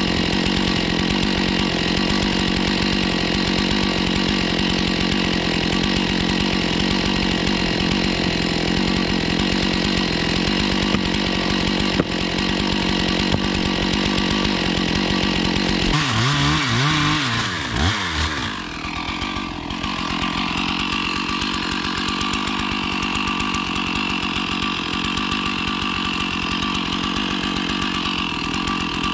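Gas chainsaw running steadily. About two-thirds of the way through, its pitch sweeps down and it settles into a different, thinner steady engine note.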